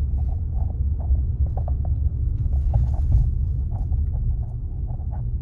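Car driving slowly over a rough unpaved road, heard from inside the cabin: a steady low rumble with many small scattered clicks and rattles.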